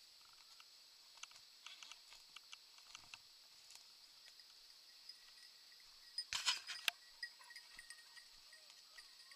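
Footsteps through dry brush: scattered twig snaps and crackling as a hunter pushes through scrubby undergrowth, with a louder burst of crackling and rustling about six and a half seconds in. Faint metallic jingling comes and goes through it.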